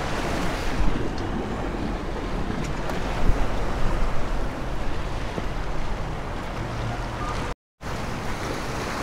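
Surf washing against and over jetty rocks, a steady rushing noise, with wind buffeting the microphone. A brief gap of silence comes near the end.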